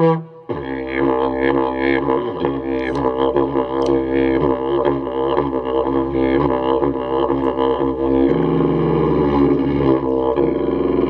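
Didgeridoo playing: a short blast, then from about half a second in a continuous drone with rhythmically shifting overtones.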